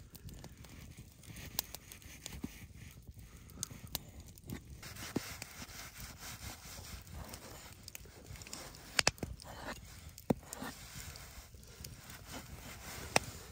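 Hatchet blade slicing through a cooked steak and knocking down onto a split-wood board, with scattered light clicks and three sharper knocks in the second half.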